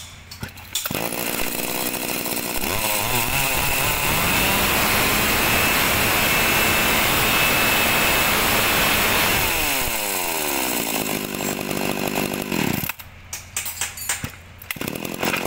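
Shindaiwa 450 chainsaw's 45cc two-stroke engine running: it comes in about a second in, revs up to a steady high pitch, then winds down from about ten seconds and cuts off near thirteen seconds, followed by a few short knocks.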